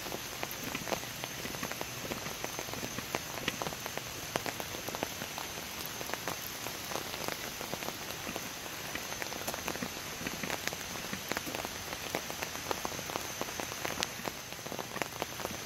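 Steady rain falling, with many sharp individual drop hits close by.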